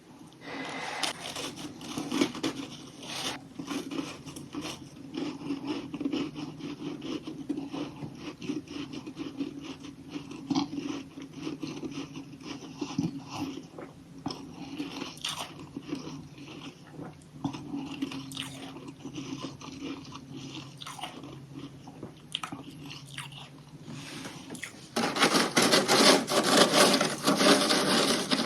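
Close-up biting and chewing of crunchy chunks of humidifier freezer frost, a dense run of crackling crunches. Near the end the crunching becomes suddenly louder and denser.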